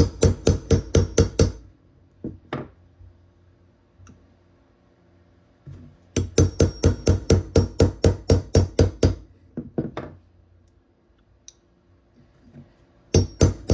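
Claw hammer rapidly tapping a steel 17 mm socket to drive a new part into a brake caliper bracket: quick metallic ringing strikes at about five or six a second. They come in three runs, at the start, for about three seconds in the middle, and again near the end.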